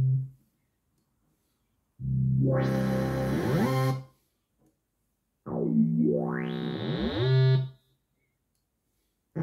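Korg Kaossilator Pro+ playing synth bass sounds from its touch pad: two phrases of about two seconds each, separated by silence. The first holds a low note, then sweeps upward in pitch as the tone brightens. The second slides down and back up.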